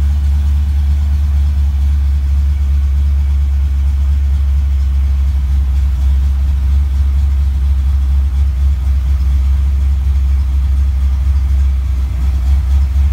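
A Fox Body Mustang's Holley EFI-equipped 302 (5.0 L) small-block Ford V8 idling steadily at about 1,000 rpm, heard from inside the cabin as a deep, even hum. The engine is still cold, with coolant at about 92 °F, which is why the idle sits that high.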